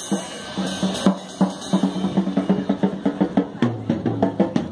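Live rock band playing: a drum kit with snare and bass drum beating a fast, even rhythm over electric guitars, with a low held note coming in near the end.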